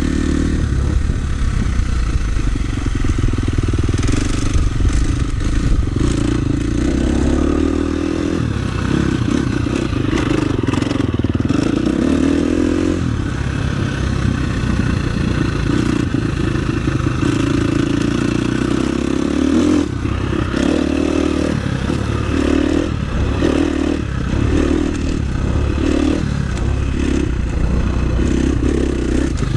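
KTM 350 SX-F's single-cylinder four-stroke engine under way on a dirt track, heard close from the handlebars. It revs up and eases off with the throttle, with a quick run of short throttle bursts in the second half.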